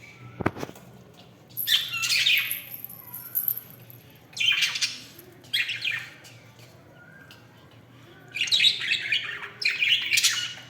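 Budgerigars chirping and squawking in several short bursts, with a single thump about half a second in.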